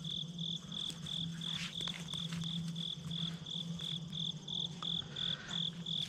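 Insects chirping in a steady, even rhythm, a high pulsing note about three times a second, over a low pulsing drone.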